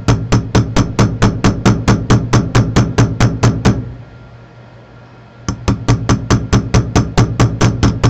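A small watchmaker's hammer tapping quickly and lightly on the punch of a staking set, about four to five metal taps a second, with a pause of about a second and a half midway. The taps drive the roller table down onto a Hamilton pocket watch balance staff.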